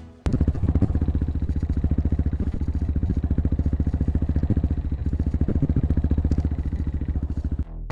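Motorcycle engine running steadily at idle, with a fast, even beat. It comes in abruptly just after the start and cuts off shortly before the end.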